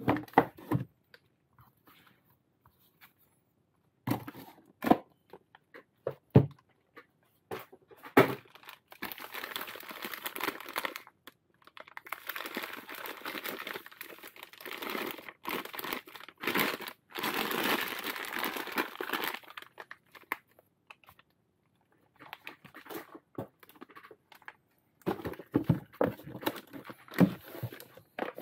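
Plastic bag crinkling and tearing, in long rustling stretches in the middle, with scattered sharp knocks and rustles from handling a cardboard box before and after.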